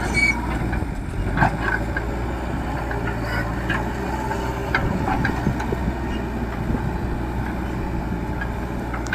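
Leyland Deere 435 backhoe loader's diesel engine running steadily, with a few short sharp knocks over it.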